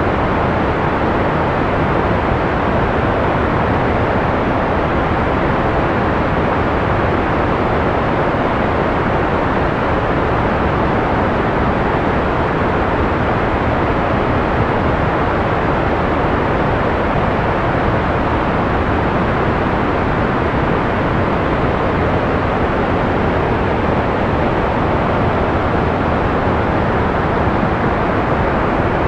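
Steady analog white noise: an even, unbroken rushing hiss, softened in the highs, with no change in level.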